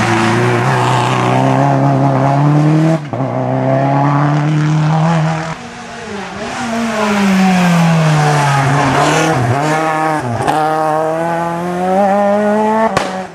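Rally car engines at full throttle on a stage: revs climb through the gears, drop on each change, and in the middle fall away under braking before climbing again. The sound jumps abruptly a few times as passes by different cars are cut together.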